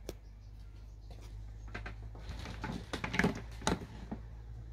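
A few knocks and scrapes from the plastic lid of a storage-bin reservoir being handled, bunched about two and a half to four seconds in, over a steady low hum.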